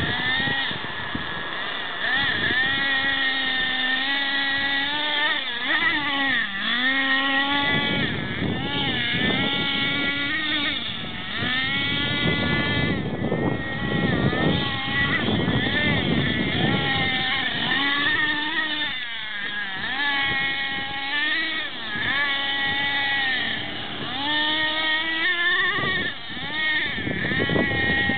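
Thunder Tiger MTA-4 nitro RC monster truck's small two-stroke glow engine revving up and down again and again as it is driven hard, its high-pitched whine rising and falling every second or two with brief dips.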